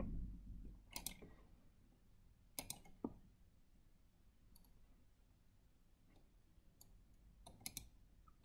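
A few scattered computer mouse clicks against near silence: one about a second in, a quick group around the third second, and another small group near the end.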